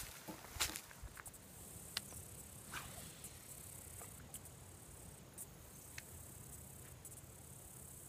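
Insects chirring steadily in a high, thin band, with a few sharp clicks and short rustles in the first few seconds.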